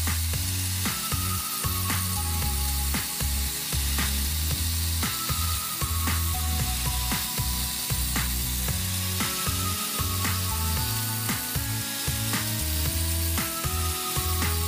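Background music with a steady beat and a bass line that changes note every second or so.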